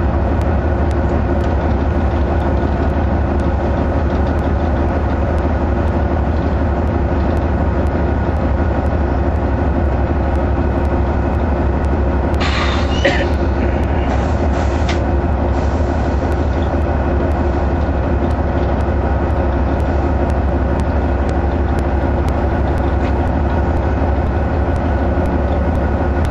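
GE C44AC (AC4400CW) diesel locomotive's V16 engine running with a steady, unchanging drone. A short burst of higher-pitched noise comes about halfway through.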